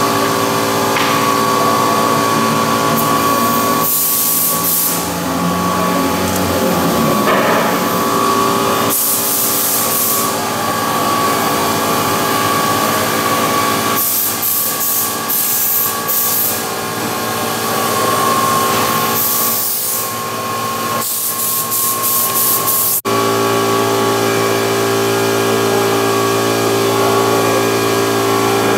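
A power tool running steadily with a machine whine made of several fixed tones, with bursts of hissing noise every few seconds. Its pitch changes abruptly about 23 seconds in.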